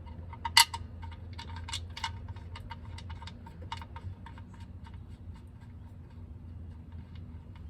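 Light metallic clicks and ticks as the oil drain plug, with its new washer, is fitted and threaded back into the oil pan: one sharper click about half a second in, then a run of small uneven ticks that thin out.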